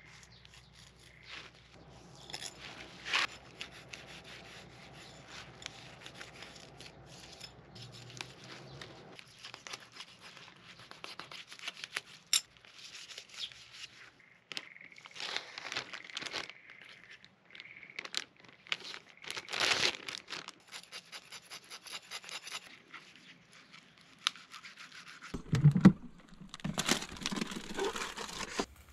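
Kitchen knife scraping and slicing through a fish on a plastic cutting board while filleting, in short, uneven strokes. Near the end, louder bumps and rustling of things being handled.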